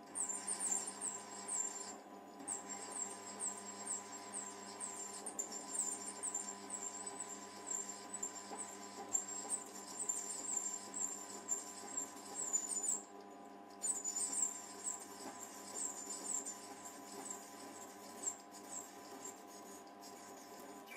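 Mini lathe cutting with a grooving/parting tool: short high-pitched squeals repeat about two to three times a second over the steady hum of the lathe's motor and gears. The squealing stops briefly twice, about two seconds in and near the middle.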